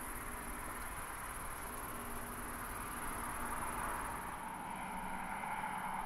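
Steady, fairly quiet vehicle hum that swells slightly midway, with a constant high-pitched insect buzz above it.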